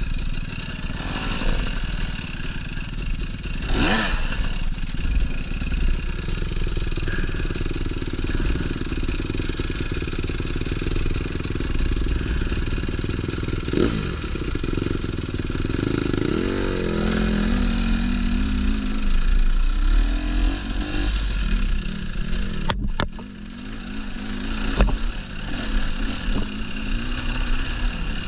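Dirt bike engine running on a trail ride, its pitch rising and falling as the throttle works, with a clear rev-up about two-thirds of the way through. Clattering knocks come over the top, with one sharp knock near the end.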